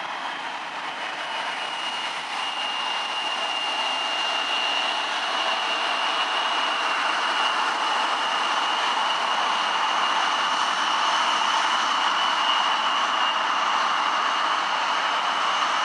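Embraer E170's twin General Electric CF34-8E turbofans running at taxi thrust as the jet rolls past: a steady high fan whine over a broad rushing hiss, growing gradually louder.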